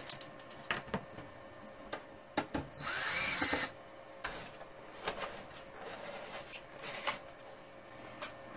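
A DeWalt cordless drill/driver spins up and down once, for under a second about three seconds in, backing a screw out of a rack unit's top cover. Short, sharp clicks and knocks come and go around it as the cover is worked off.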